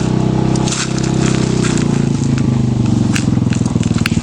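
Motorcycle engine running steadily at low revs, with scattered crackling clicks over it.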